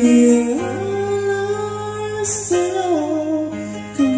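Karaoke song playing from a Platinum Major karaoke player, a backing track with guitar under a voice singing a Tagalog song in long held notes, stepping to a new pitch about half a second in and again past the two-second mark.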